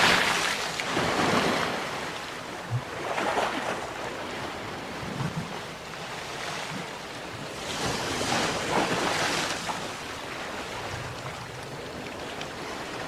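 Sea waves breaking and washing up on the shore, the surf rising and falling in surges, with a loud one at the start and another big one about eight seconds in.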